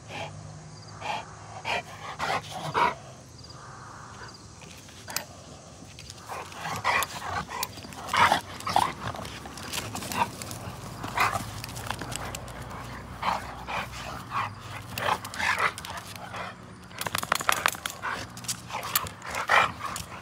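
Two pit bulls play-fighting, giving many short, irregular play growls and yips, coming more thickly near the end.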